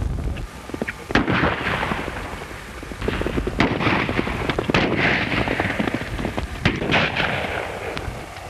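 Horses galloping, their hooves clattering fast on the ground, with several loud gunshots ringing out over them, the first about a second in and the rest in the second half.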